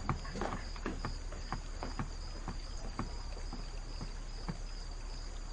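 Soft footsteps, about two or three a second, over a steady high chirr of night insects and a low hum.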